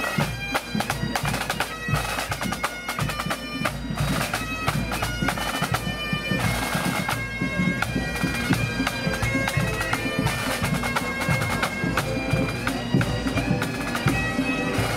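Pipe band playing a march: Great Highland bagpipes carry the tune over their drones, with side drums playing sharp, fast strokes and a bass drum keeping time.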